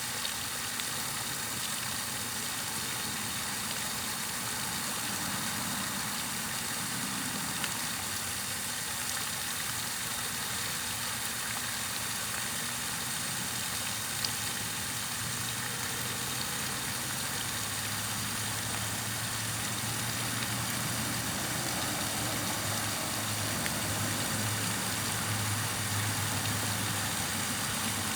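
Steady white-noise hiss for sleeping, with a low hum underneath that grows stronger a little past the middle.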